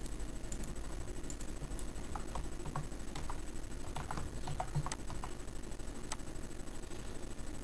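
Typing on a computer keyboard: a run of irregular key clicks starting about two seconds in, quickest in the middle and stopping about six seconds in.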